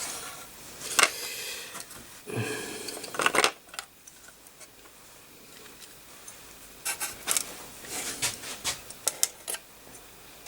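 Handling noises from fitting an AGP connector onto a motherboard: small clicks, taps and scraping of hard plastic and metal parts. There is a sharp click about a second in, a rubbing scrape a little later, and a run of quick taps and clicks near the end.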